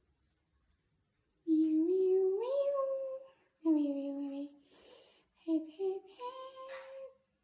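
Congo African grey parrot singing in a human-like voice: three short sung phrases, the first stepping up in pitch, the second sliding down, the last a few quick notes ending on a held note.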